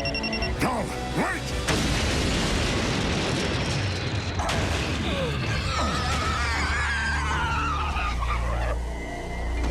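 Action soundtrack: dramatic score with sound effects of booms and crashes, a loud noisy crash-like stretch near the start followed by swooping effects over a low rumble.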